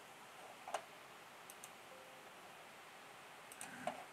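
A few scattered computer mouse clicks, the clearest about a second in and a couple more near the end, over a faint steady hiss.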